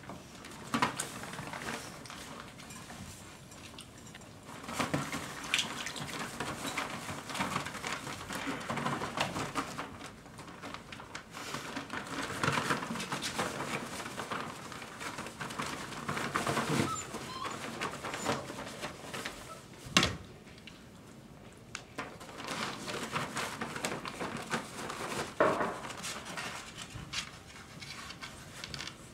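Five-week-old Dogo Argentino puppies scrambling about a plywood whelping box: paper bedding rustling and claws scratching and knocking on the wood in irregular spells, with a few sharp knocks.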